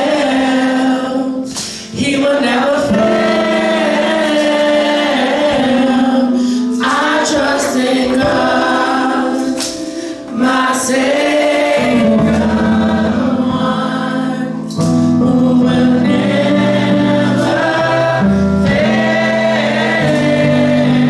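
Gospel mass choir singing in held, sustained phrases with short breaks between them. Low bass accompaniment comes in about halfway through.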